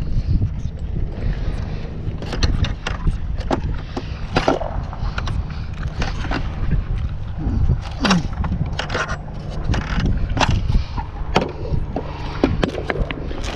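Irregular metal knocks and scrapes as old threaded rods are pounded out of wooden timbers, some strikes ringing briefly, over a steady low wind rumble.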